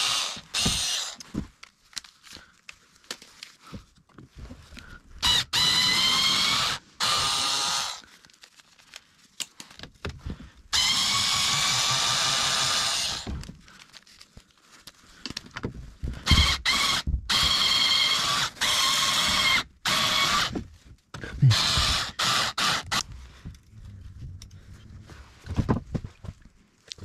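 Power drill running in about eight short bursts of one to two and a half seconds each, its motor whine holding steady or dipping slightly within a burst. Knocks and clatter fall between the bursts.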